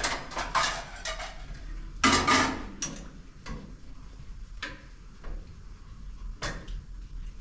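A spoon clinking and scraping against a pot and plates as food is dished out, with louder clatters at the start and about two seconds in, then lighter irregular ticks.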